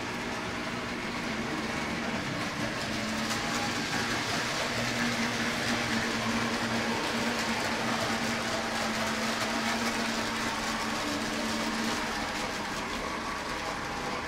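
Toy electric trains running around their track loops: a steady motor hum with wheel noise on the rails, growing louder through the middle as a train passes close.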